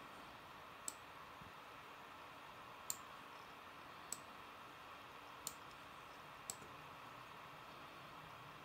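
Computer mouse clicking: five single sharp clicks at uneven gaps of one to two seconds, over a faint steady hiss.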